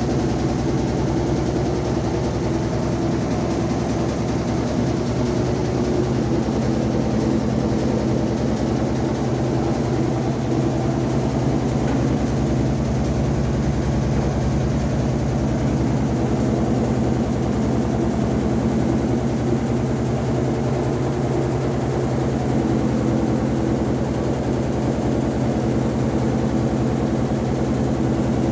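Electrolux LED14 washing machine running, a steady motor hum with a fast, even rattling buzz that does not change.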